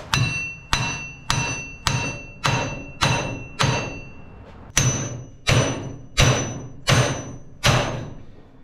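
Hammer blows on a rust-seized front wheel hub assembly of a Hummer H3, struck to drive it out of the steering knuckle. There are about a dozen hard metal strikes, roughly one every 0.6 seconds with a short break partway through, and each blow rings.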